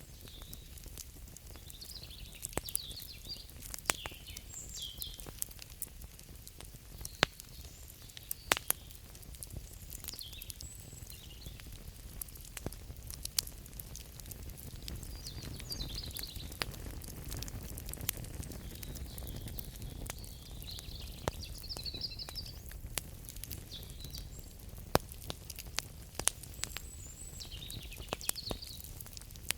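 Crackling wood fire, with a steady low rumble and sharp pops scattered irregularly throughout, several of them loud. Short bursts of high chirping calls come and go every few seconds over the fire.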